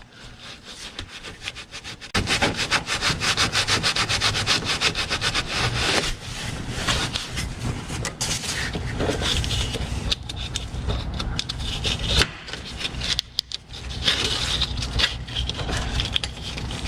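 A rag scrubbed back and forth over the Maverick X3's frame, wiping off spilled oil: quick, even rubbing strokes that start about two seconds in and break off briefly near the end.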